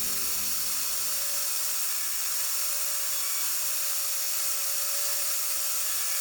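CNC router spindle running steadily while cutting wood: one constant whine over a high hiss.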